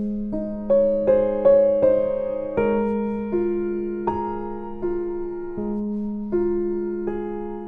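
Slow, gentle piano music: single notes struck about every three-quarters of a second, each fading away, over a held low note.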